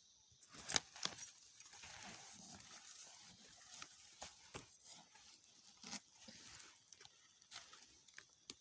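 Dry leaves and undergrowth rustling and crackling, with scattered sharp snaps, as plants are handled and picked. A steady high insect drone runs behind.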